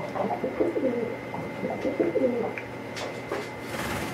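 Domestic pigeon cooing: a series of low coos over the first two and a half seconds.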